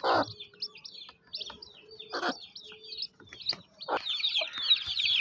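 Chicks peeping: many quick, high, falling chirps that grow denser and louder near the end. Three short scratchy noises sound in between.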